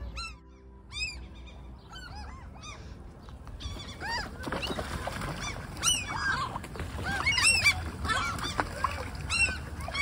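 A flock of gulls calling while diving for food on the water: a few scattered calls at first, then many overlapping calls from about four seconds in.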